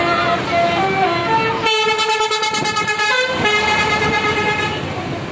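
A tour bus's telolet Basuri multi-tone horn playing a quick tune, its notes stepping up and down, with a harsher buzzing held note for about a second and a half in the middle.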